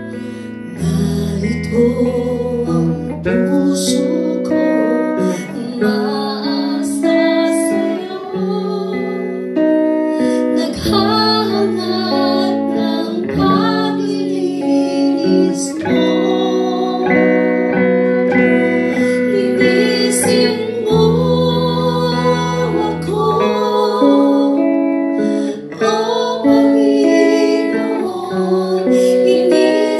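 Slow praise-and-worship song: women singing a melody over electric guitar and sustained, held chords with a low bass line.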